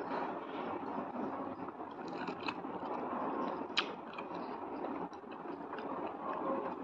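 Quiet eating sounds of a person eating rice and curry with her fingers: chewing and mouth noises, with a few short sharp clicks and smacks, over a low steady hiss.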